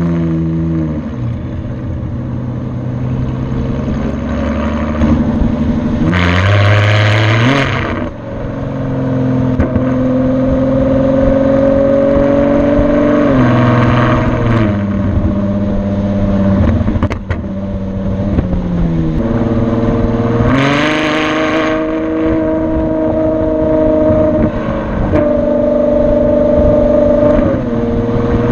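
Ferrari FF's V12 through a Tubi Style valved exhaust, recorded at the tailpipes while driving: the engine note climbs and drops back at each gear change, several times over. Two stretches of harsher, hissier sound come about six and twenty seconds in.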